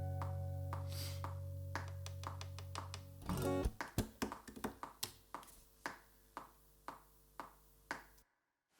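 Final guitar chord ringing out and fading, then damped about three seconds in with a short handling noise. Through it, a metronome click ticks steadily about twice a second until the sound cuts off near the end.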